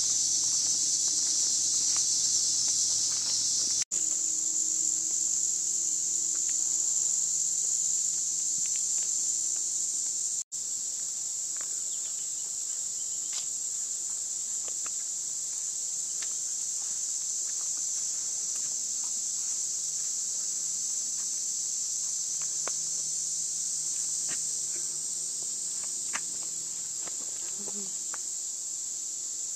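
Steady, high-pitched chorus of insects, cutting out for an instant twice, about four and ten seconds in.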